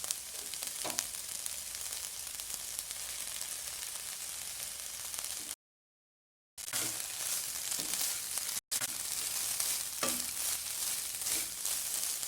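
Food frying in hot oil in a pan: a steady sizzle with small crackles. It cuts out completely for about a second midway and again for an instant a little later.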